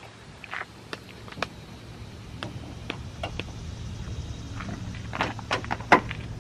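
Scattered clicks and knocks of tools and parts being handled while a truck's front end is taken apart to reach a headlight, over a low steady hum that grows louder toward the end.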